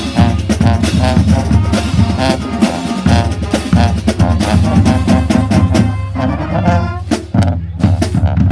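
High school marching band playing: sousaphones, trumpets, trombones and saxophones over a steady beat of snare and bass drums. The playing drops off briefly about seven seconds in, then picks up again.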